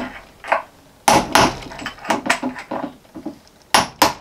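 Light hammer taps, about ten, on a metal punch set against a wheel bearing, knocking the bearing out of a solid-core wheel's hub. The taps come irregularly at first and fall into a steadier rhythm near the end.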